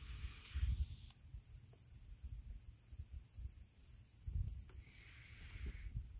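A cricket chirping steadily, faint short high chirps at about four a second, over low uneven rumbling.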